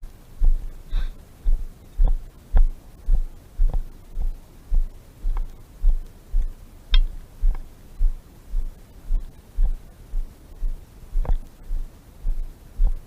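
Low, dull thuds repeating evenly about twice a second, the footfalls of a person walking with the camera, jarring the microphone. A few faint clicks come in between.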